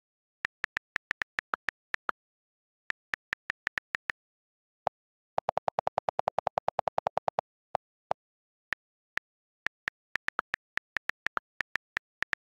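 iPad on-screen keyboard click sounds as letters are typed, in short irregular runs of sharp clicks. About five seconds in, a rapid string of lower, duller clicks lasting about two seconds: the delete key held down and repeating to erase the text.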